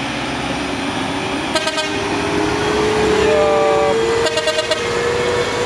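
Truck diesel engines working hard on an uphill climb, one engine note rising slowly in pitch as it pulls, with short horn toots about one and a half seconds in and again a little after four seconds.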